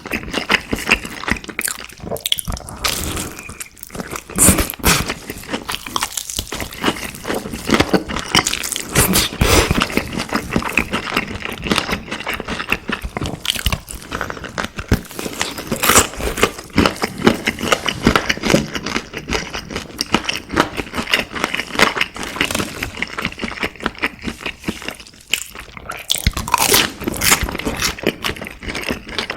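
Close-miked eating: continuous crunchy biting and chewing of crisp fried food, with dense crackling throughout.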